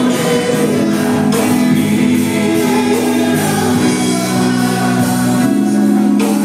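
Live gospel worship music: a group singing with a band, tambourine among the instruments.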